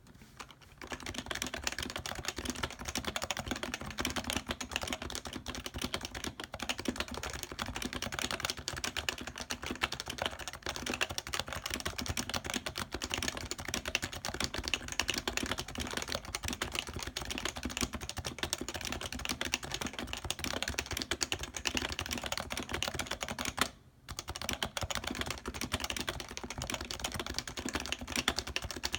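Fast, continuous typing on a Happy Hacking Keyboard Professional 2 with its standard, non-silenced Topre electrostatic capacitive switches: a dense run of key clicks that starts just under a second in and pauses briefly about 24 seconds in.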